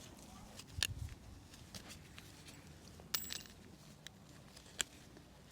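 A few faint, scattered clicks and scrapes of a knife and hands working at a shrub's burlap-wrapped root ball, cutting and pulling the burlap free.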